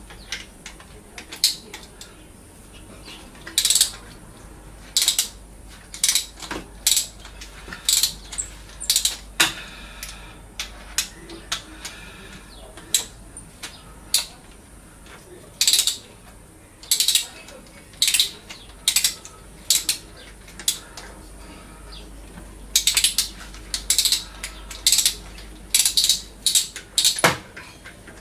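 Hand ratchet wrench clicking in short bursts, roughly one burst a second with occasional pauses, as fasteners are turned during engine disassembly.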